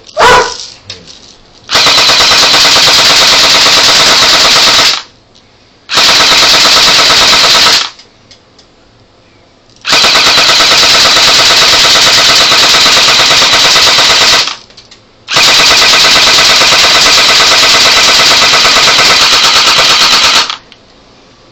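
Airsoft gun firing on full auto in four long bursts of rapid shots, very loud, with short pauses between bursts; a single sharp hit comes just before the first burst.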